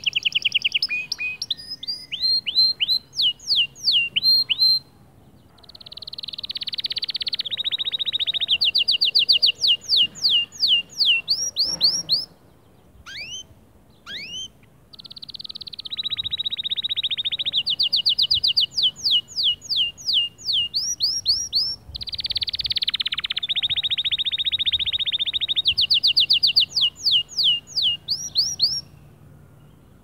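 Male domestic canary singing: phrases of fast buzzing trills, each followed by a run of quick repeated down-slurred notes, about four a second, with short pauses between phrases.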